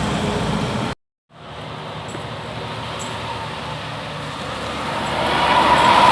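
Road traffic noise from vehicles passing close by. The sound cuts out briefly about a second in, then a vehicle approaches and grows steadily louder toward the end.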